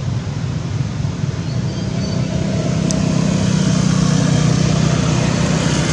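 A motor vehicle's engine running steadily, its low hum growing louder about a second and a half in.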